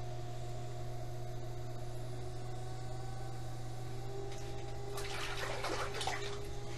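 Electric potter's wheel running with a steady hum and faint whine. About five seconds in, a brief burst of water splashing as a hand dips into the water bucket beside the wheel.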